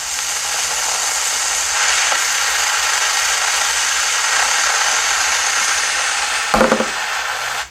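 A lit firework spraying sparks, a steady loud hiss that runs for about six and a half seconds before breaking off; it is easily taken for water or a fire extinguisher spraying.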